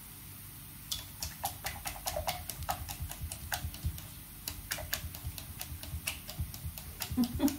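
Whisk clicking and tapping against the side of a mixing bowl while stirring pancake batter: a quick, irregular run of sharp clicks that starts about a second in and stops near the end.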